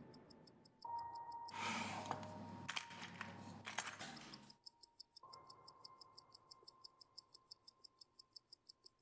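Faint, quick, even ticking of a mechanical watch, with a held electronic tone underneath. About a second and a half in, a three-second burst of rustling and small clicks covers it.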